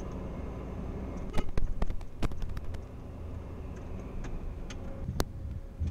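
Gulfstream G-IV touching down, heard inside the cockpit: a steady rumble of the jet rolling on the runway, with a run of sharp knocks and clicks from about one and a half to three seconds in and one more near the end.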